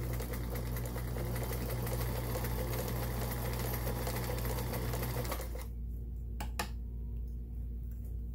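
Sears Kenmore 158.1802 sewing machine running steadily, stitching fabric on a stretch stitch, then stopping abruptly about five seconds in. Two light clicks follow a second or so later.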